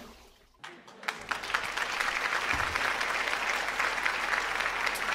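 Crowd applause: a dense, even patter of many hands clapping that comes in about a second in, after a brief dead silence.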